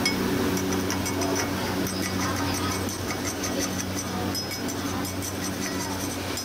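Stick welding on a steel angle with a Reboot 120 A inverter welder: the arc crackles irregularly over a steady low hum.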